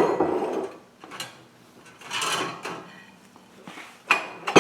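Dishwasher rack and dishes being handled, with a few short bouts of sliding, rattling and knocking separated by quieter pauses.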